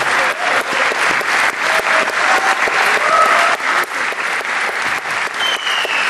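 Audience applauding steadily, a dense continuous clatter of many hands clapping, with a short high whistle-like tone near the end.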